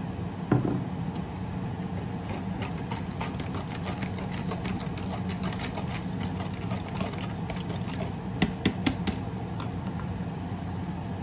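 Bitter melon with onion and garlic crackling and ticking in a covered pan on a gas burner turned up high, over a steady low hum. There is a knock about half a second in and a quick run of sharp clicks near the end.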